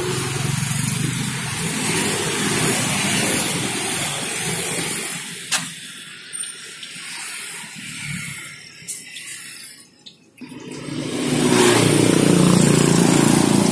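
Roadside traffic noise that thins out for a few seconds with a couple of sharp clicks, then rises to a loud engine rumble passing close near the end.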